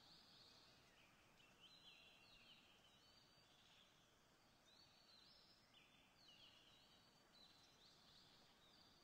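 Faint birdsong: short, high chirps and trills from small birds, repeating every half second or so over a low hiss.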